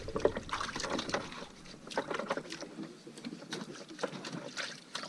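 Water lapping and sloshing against the hull of a small boat, with irregular small knocks and clicks on deck.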